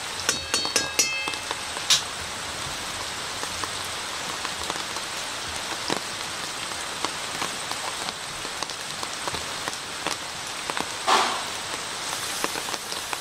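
Onions and potatoes frying in oil in a metal wok, a steady sizzle. A metal spatula clinks against the wok several times in the first second or so. The sizzle swells briefly about eleven seconds in as raw chicken pieces are dropped into the hot oil.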